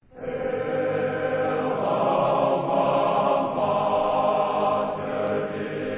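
Choir singing slow music in long held notes, fading in at the start.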